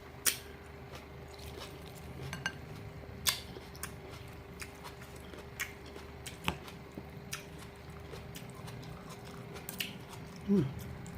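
Eating from a plate: cutlery clinking against the dish in short, sharp clicks every few seconds, with chewing between.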